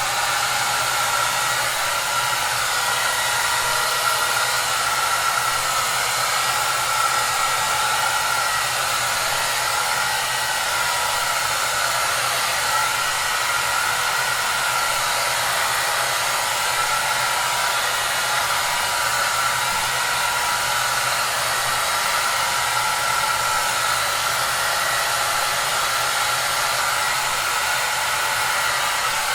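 Hair dryer running steadily: a constant rush of blown air with a faint whine in it, mostly in the upper range, unchanging throughout.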